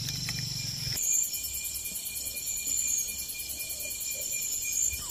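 Night insects calling steadily in a high pitch, with a chorus of shrill tones and a fine pulsing trill; the mix of calls changes about a second in.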